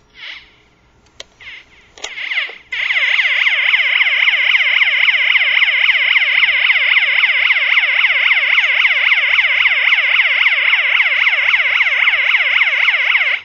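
Small electronic alarm sounder playing a loud siren tone, a fast up-and-down sweep repeated several times a second. It starts after a couple of short chirps, about three seconds in, and cuts off suddenly at the end.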